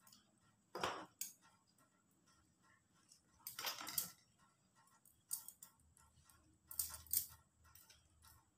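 Spring onions being cut and handled on a plastic chopping board: faint scattered taps of the knife on the board and short crunching cuts, the longest about halfway through, with metal bangles clinking.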